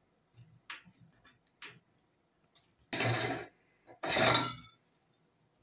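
Crumbled pieces being handled at a hand-cranked meat grinder's outlet: a few light clicks, then two short crunchy rustles as handfuls of crumbs are scraped off the die plate onto the pile.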